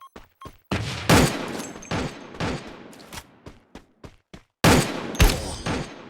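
An irregular series of sharp bangs, each fading away over a second or so, the loudest about a second in and again around five seconds in.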